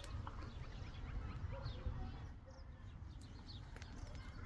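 Small birds chirping again and again in short, quick, falling notes, over a steady low rumble.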